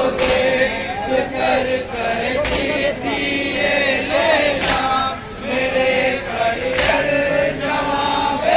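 A group of men chanting a Shia noha (lament) in unison, with four sharp group strikes a little over two seconds apart in time with the chant: the crowd beating their chests in matam.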